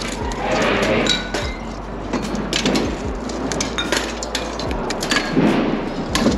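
Rusty scrap iron bars, pipes and rebar clanking and clinking against each other in a pickup truck bed as pieces are pulled out of the heap by hand, in a run of irregular metallic knocks.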